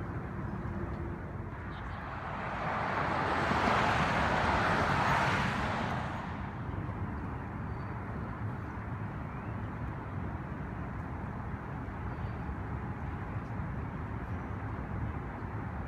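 Steady outdoor background rumble, with a rushing noise that swells up about two seconds in and fades again over about four seconds.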